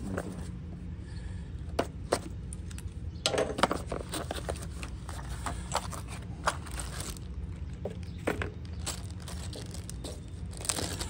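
A small cardboard parts box being torn open and a plastic bag of rubber pieces, neoprene washers and snap rings handled: scattered crackles, crinkles and small clicks.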